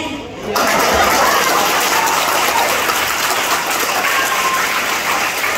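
Audience applause, breaking out suddenly about half a second in and holding steady.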